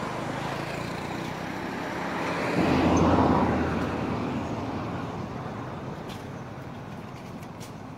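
Road traffic noise with a motor vehicle going by: a low engine hum swells about three seconds in, then fades slowly away.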